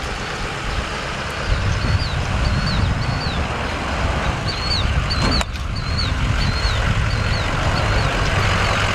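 A small bird chirping repeatedly, short high chirps about twice a second, over a low, uneven rumble.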